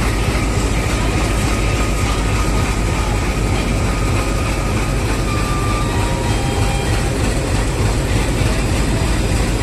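WDM-3D diesel-electric locomotive's 16-cylinder ALCO engine idling with a steady low rumble.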